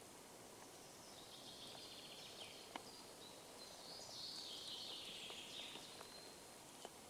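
Faint forest ambience with a distant songbird singing a high trilling song for several seconds in the middle, and a few faint ticks.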